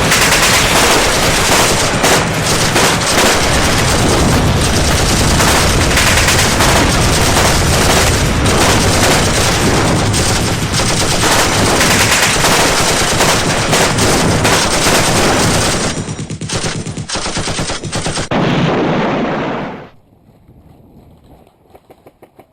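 Loud, dense, sustained automatic gunfire. It thins out about 16 seconds in and cuts off suddenly near 20 seconds, leaving only faint ticking.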